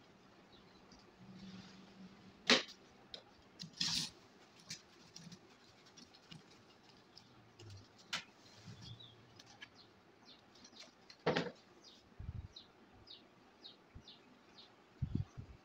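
Quiet handcraft handling noises: scattered sharp snips and clicks of scissors and paper, with a few low knocks against the cardboard frame. A run of short, high ticks comes near the end.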